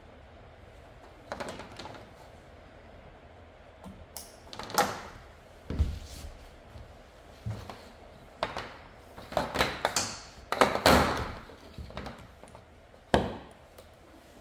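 Irregular knocks, clicks and rustling from hands working a solar panel's cables and connectors on a camper van roof, with a dull thump about six seconds in and a sharp click near the end.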